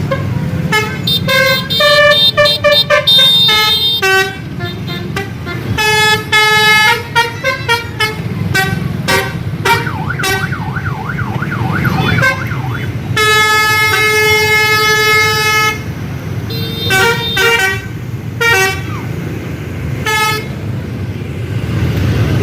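Bus telolet horn, a multi-tone musical air horn, playing a quick tune of short toots at changing pitches. Slightly past halfway one note is held for nearly three seconds. A low engine and road rumble runs underneath.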